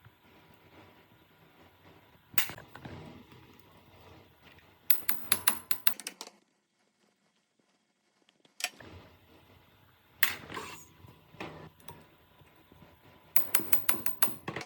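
Hand tools on metal grinder parts: a sharp knock, then a quick run of clicks, a near-silent gap, then more single knocks and another rapid run of clicks near the end.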